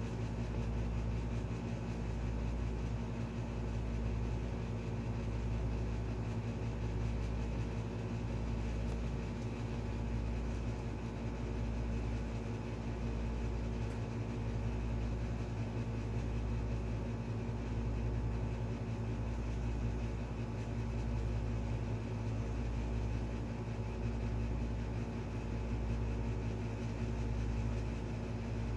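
Steady low machine hum with several fixed tones and a slow, regular throb in the bass.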